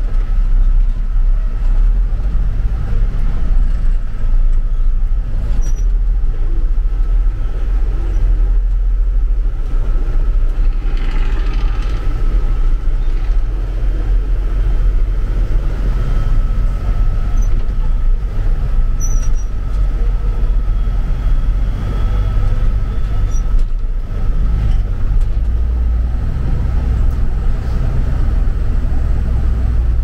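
Truck engine running steadily, heard from inside the cab while driving: a deep constant rumble with a faint steady whine above it.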